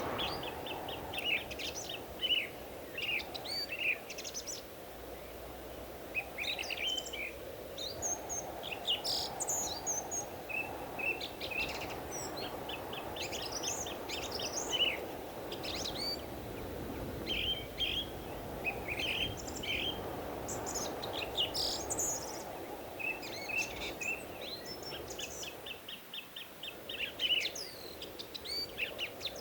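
Several forest birds chirping and calling in quick trilled series throughout, over a steady low rushing background.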